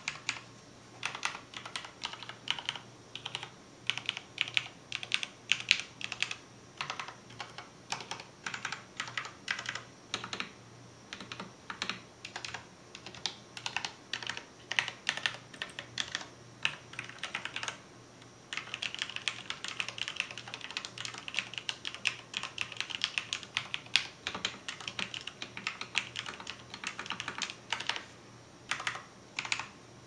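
Typing on a CoolerMaster Quickfire Rapid keyboard fitted with lubed Cherry MX Vintage Black linear switches, 62 g springs, a custom plate and thick PBT keycaps: a rapid patter of keystrokes. After a short pause about two-thirds of the way through, the typing comes faster and denser, then stops shortly before the end.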